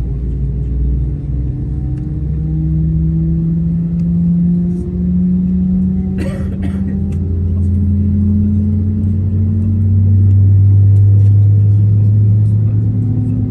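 Airbus A320 jet engine spooling up at start, heard inside the cabin: a low drone whose pitch climbs slowly and grows louder toward the end. A brief hiss about six seconds in.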